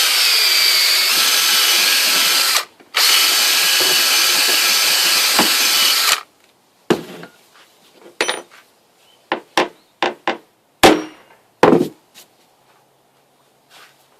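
A handheld power tool runs in two steady bursts of about three seconds each with a short stop between, cleaning up a hole for a clamp-pin insert in a workbench. It is followed by a handful of sharp knocks and taps.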